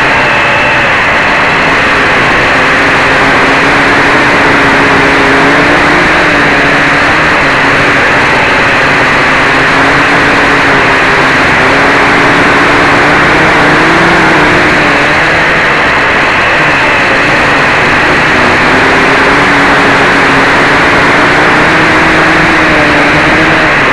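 Quadcopter's four DT750 brushless outrunner motors spinning 11x4.7 propellers in flight, heard from a camera mounted on the frame: a loud, steady whirring over rushing prop-wash noise, its pitch wavering up and down as the throttle changes.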